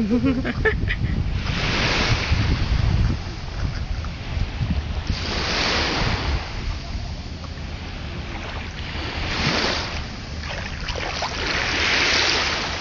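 Small sea waves washing in on a sandy shore, swelling and falling every few seconds, with wind buffeting the microphone.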